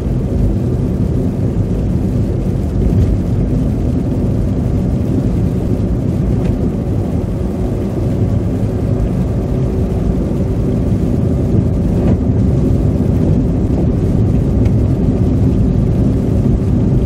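Steady low road and engine rumble inside a moving car's cabin, tyres running through slush on a winter road. A faint tick comes about every six seconds.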